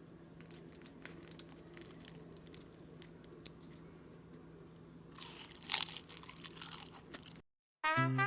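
Close crunching and chewing of crisp stir-fried dried anchovies, light scattered crunches over a low steady hum, then a louder burst of crunching about five seconds in. Upbeat swing music with brass starts just before the end.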